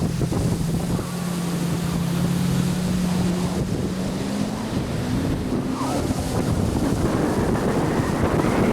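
Jet ski engine running at speed with a steady drone that climbs slightly in pitch partway through, under heavy wind buffeting on the microphone and water rush.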